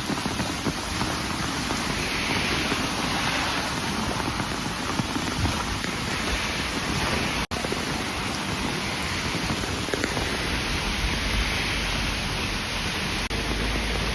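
Heavy rain pouring steadily, a continuous hiss of rain on a flooded street, swelling and easing slightly at times.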